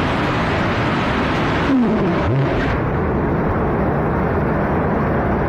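SpaceX Raptor methane rocket engine firing with a loud, steady roar, then shutting down about two seconds in, with brief falling and rising tones as it cuts off. A duller rushing noise carries on after the cutoff while vapour vents from the nozzle.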